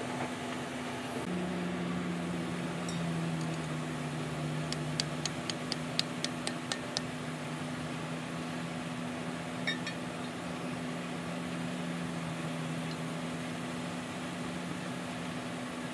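Light metal clicks, a run of about nine at some four a second near the middle and a couple more later, as a screwdriver and pry bar work at the old oil seal inside a wheel loader's wheel hub, over a steady low machine hum.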